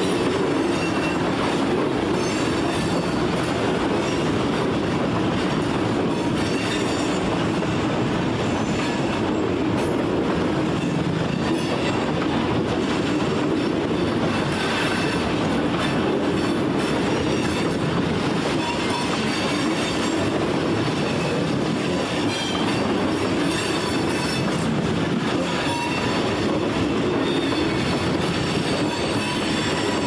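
Freight train cars rolling past steadily, with short high-pitched wheel squeals now and then.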